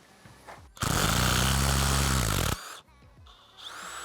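A power tool runs for about two seconds, spinning out an engine bolt during teardown, then stops sharply.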